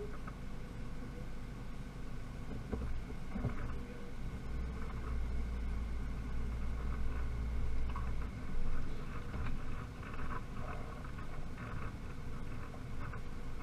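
Pickup truck rolling slowly over rough pasture: a steady low rumble of engine and tyres that swells for a few seconds in the middle, with small rattles and ticks from the cab.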